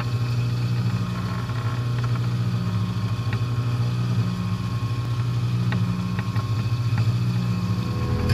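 Wet tile saw running steadily, its water-cooled blade spinning free with no stone in the cut: a steady motor hum, with a few faint ticks.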